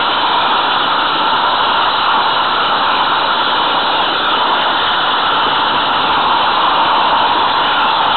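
Steady rushing hiss picked up by a camera riding on a moving 16 mm scale garden-railway train, with no clear rhythm or pitch.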